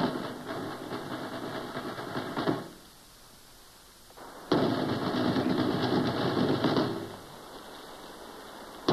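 A fast, dense rattle in loud bursts that start abruptly: the first lasts about two and a half seconds, and a second begins about halfway through and lasts a little over two seconds.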